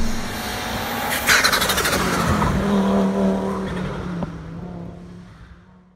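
A car engine in a logo sound effect, revving sharply about a second in, then dying away to near silence.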